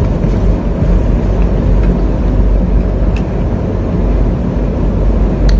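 Loud, steady low rumbling noise, with a few faint clicks about three seconds in and near the end.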